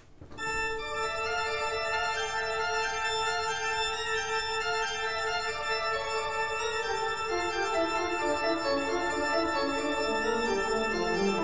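Background music of slow, sustained organ-like chords, starting about half a second in, with lower notes stepping downward in the second half.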